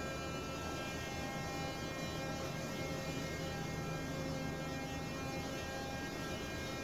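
Steady engine-room machinery hum with many constant tones, including the just-started fuel oil feed pump running for the heavy fuel oil purifier.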